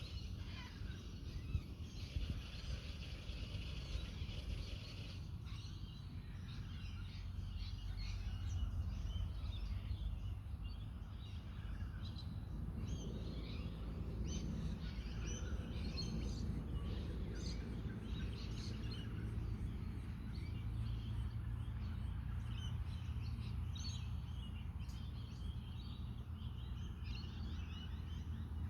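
Wind on the microphone giving a steady low noise, with many small birds chirping over it; the chirping grows busier about five seconds in.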